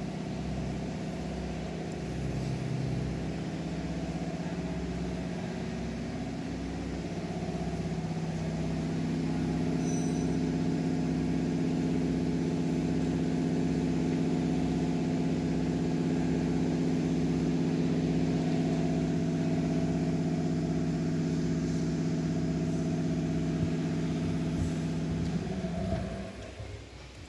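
A steady machine drone, engine-like, with a low pulsing hum underneath. Its pitch shifts slightly a few seconds in and it grows a little louder, then it fades out near the end.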